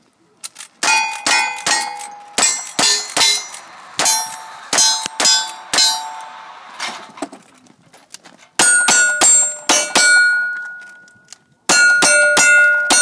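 Cowboy action shooting: a lever-action rifle fires a fast string of shots, each hit answered by ringing steel targets. After a short pause, revolver shots follow in two quick groups, also ringing steel.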